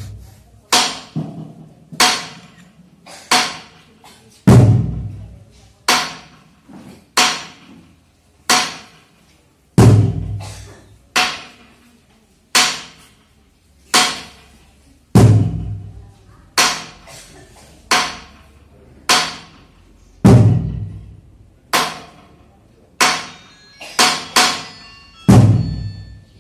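Slow, even drum-and-percussion beat accompanying a traditional dance, about one stroke every 1.3 seconds with a heavier, deeper bass stroke on every fourth beat. A few quicker strokes come near the end.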